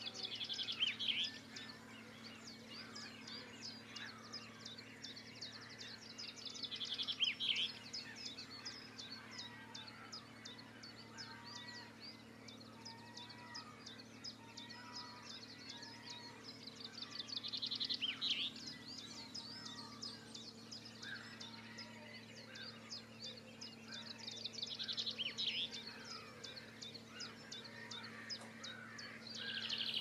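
Dawn chorus of wild songbirds. One bird repeats a short, bright, rapid trilling song ending in a falling flourish, loudest of all, five times. Softer calls and songs of other birds fill the gaps over a faint steady low hum.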